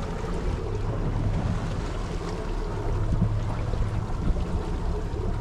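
Outboard motor of a Pathfinder 25 boat running steadily, with wind buffeting the microphone and water noise around the hull.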